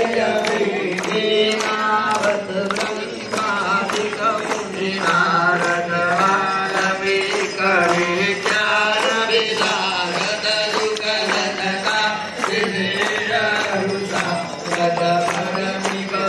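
Hindu aarti hymn sung over a steady low drone, with the crowd clapping in time, about two claps a second.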